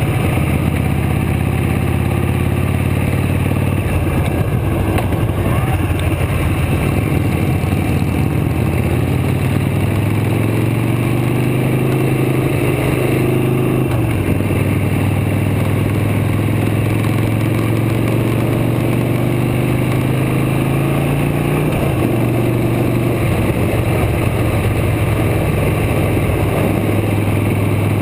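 Motorcycle engine running at road speed, heard from the moving bike, its pitch rising and falling a few times with the throttle, most plainly a rise and drop about halfway through.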